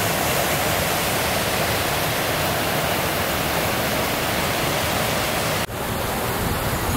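Steady rushing of a small waterfall on a mountain stream. It breaks off suddenly about two-thirds of the way through, and a softer rushing carries on.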